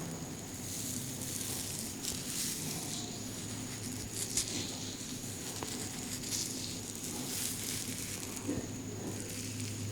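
Hands rubbing and working over a head through the hair during a head massage, making irregular rustling friction sounds, with a steady low hum underneath.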